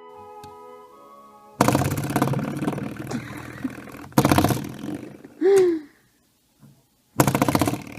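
Coiled spring doorstop flicked three times, each a loud buzzing boing that rings and dies away over a second or two.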